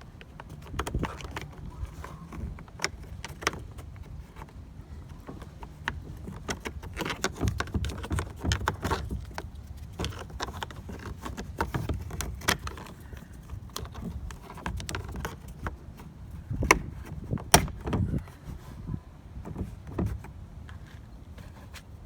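Irregular clicks, taps and knocks of hand work on parts and tools, with two sharp, loud clicks about 17 seconds in.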